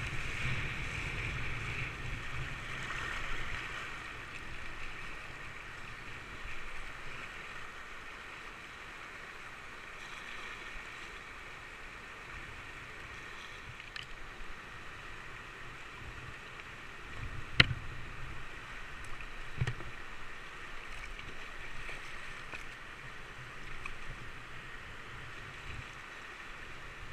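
River rapids rushing and splashing around a whitewater kayak's bow, loudest at first and easing off after a few seconds. A single sharp knock about two-thirds of the way through.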